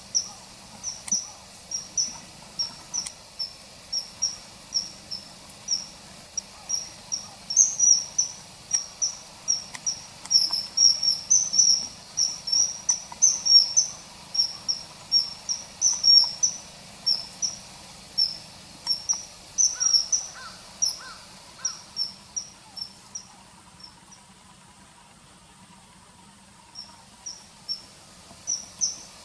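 Common kingfisher calling: a fast series of short, shrill, high-pitched notes, about two a second, with a pause of a few seconds near the end.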